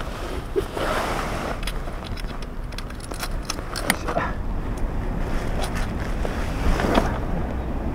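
Wet tent fabric rustling and shuffling as it is handled and spread out, with small clicks and jingles from its strap buckles and metal fittings, over a steady low rumble.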